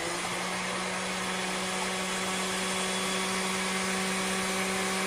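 Kitchen food processor motor running steadily at a constant pitch, blending chickpeas, garlic, lemon juice, olive oil and tahini into a smooth hummus paste.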